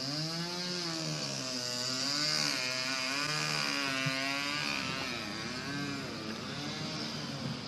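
An engine running and revving, its pitch rising and falling again and again.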